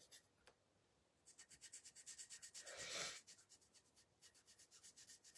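Faint, quick paintbrush strokes scrubbing or dabbing paint onto a surface, coming several a second in an even rhythm and busiest in the middle.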